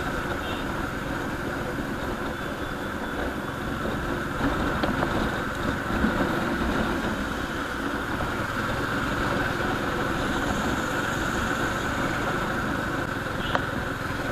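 Steady engine and road noise of a vehicle being driven, heard from on board.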